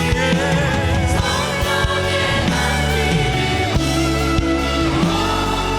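Worship team singing a Korean hymn in chorus over steady instrumental accompaniment, voices holding long notes with vibrato.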